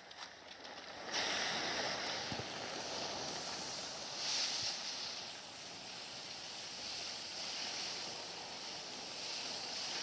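Fire burning on a wrecked vehicle: a steady rushing noise that starts suddenly about a second in and swells briefly near four seconds.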